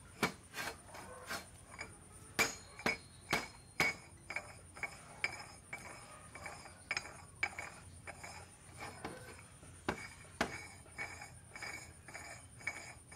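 Steel lathe spindle and its threaded collar clinking and knocking as the collar is turned on the spindle's thread and the spindle is shifted on a metal bench top: a string of sharp metal knocks, loudest between about two and four seconds in.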